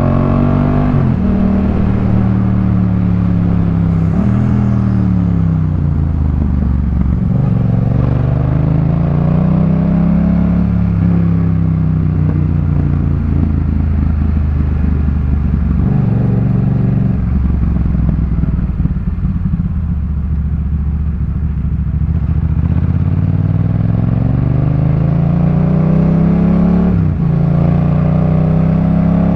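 2018 Yamaha MT-07's parallel-twin engine through a Jeskap K4 full aftermarket exhaust, pulling through the gears on the road. The pitch climbs and drops sharply at each of several gear changes, with steadier running in the middle stretch and a climb again near the end.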